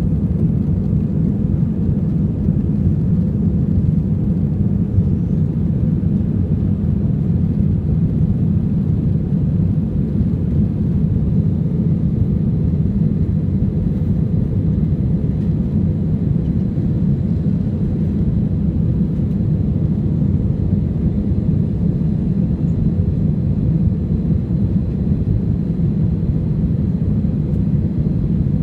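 AirAsia Airbus A320's jet engines running with a steady low rumble, a faint high thin whine held above it.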